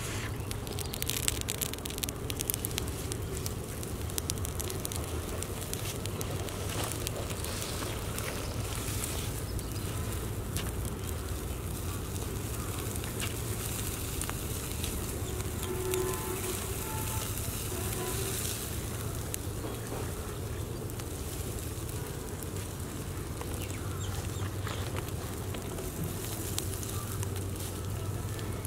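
Wood cooking fire crackling: a steady hiss with scattered sharp pops.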